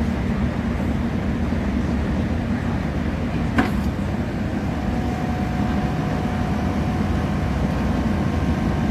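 Passenger train running, heard from inside the carriage: a steady rumble, with a sharp click about three and a half seconds in and a faint steady whine from about five seconds on.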